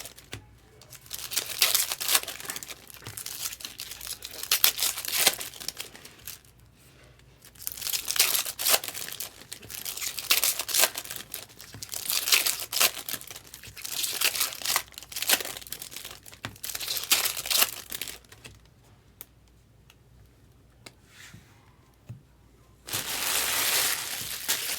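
Foil trading-card pack wrappers being torn open and crinkled in repeated bursts, with a quieter stretch of a few small clicks and a longer steady rustle near the end.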